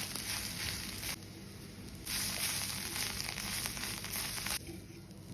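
Drumstick leaf and egg stir-fry sizzling in a hot pan, a steady hiss heard in two stretches that each start and stop abruptly.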